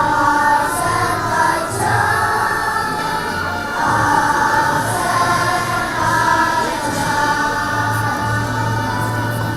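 Children's choir singing a song with instrumental accompaniment, in long held notes.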